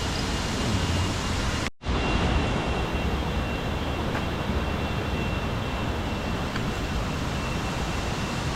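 Steady rushing water of a forest waterfall, with a brief cut to silence about two seconds in.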